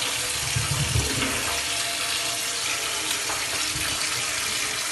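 Kitchen tap running in a steady stream into a stainless steel sink while bananas are rubbed and turned under the water, with a few soft knocks about a second in.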